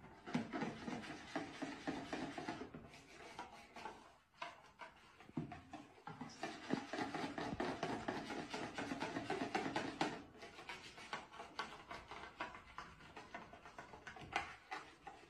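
A whisk beating thick pancake batter in a plastic bowl, thinned with freshly added milk: rapid scraping, slapping strokes with a few short pauses.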